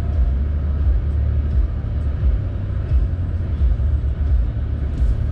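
Truck running, a steady low rumble of engine and road noise.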